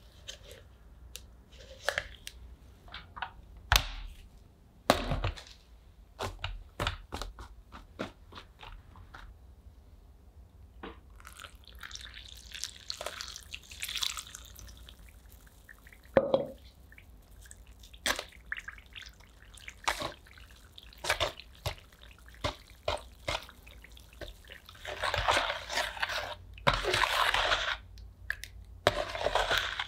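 Scattered taps and clicks of a taped cardboard and plastic mould being handled on a wooden bench, then water poured onto plaster powder in a plastic tub. Near the end, a metal spoon stirs the wet plaster in the tub.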